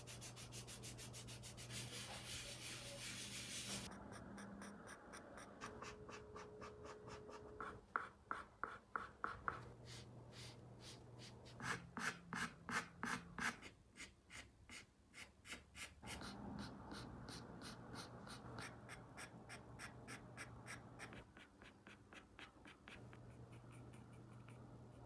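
Soft pastel rubbed across textured paper, followed by pencils scratching on the paper in quick, short, repeated strokes, about five a second in places, over a faint steady hum.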